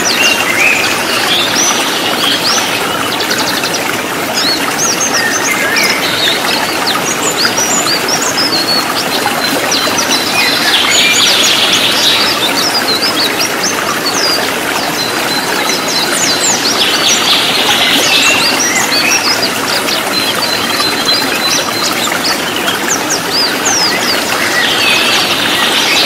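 White-eyes (pleci) singing fast: a continuous run of rapid, high twittering chirps, broken every few seconds by short buzzy trills, over a steady rush of running water.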